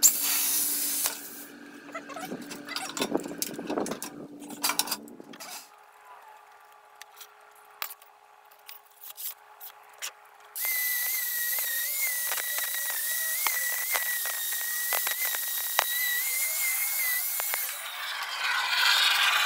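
Clicks and knocks of sheet metal being handled and clamped. About ten seconds in, a plasma cutter cutting 24 gauge sheet metal: a loud steady hiss with a high, slightly wavering whine, lasting about seven seconds.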